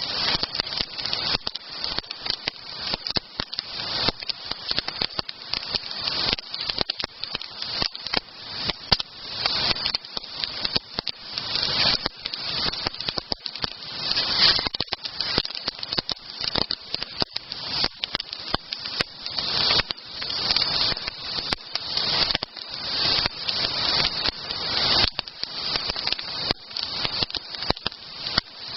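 Wood campfire crackling, with many sharp pops and snaps over a steady hiss.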